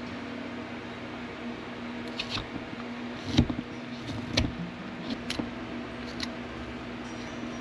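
Carving knife cutting into a basswood blank: a series of short sharp cuts and clicks from about two seconds in, the loudest about three and a half seconds in, over a steady background hum.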